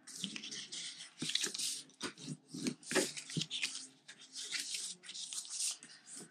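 Sheet of patterned cardstock-weight paper being folded along score lines and creased with a plastic bone folder: irregular rustling and scraping with a few short sharp taps as the folds are pressed flat.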